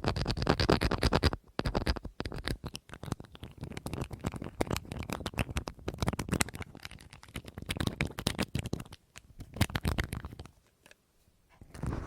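Rapid ASMR tapping and scratching on a hard object, in dense bursts of quick clicks with short pauses between them. It goes nearly quiet for about a second near the end.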